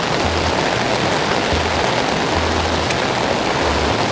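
Steady, even rush of water from floodwater running and rain falling.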